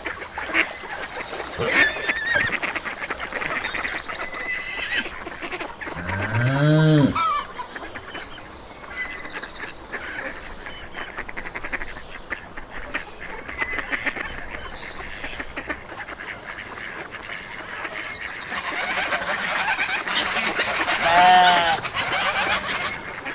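Farmyard animals calling: geese honking amid short bird chirps. A long animal call arcs up and then down in pitch about six seconds in, and two more arching calls come near the end.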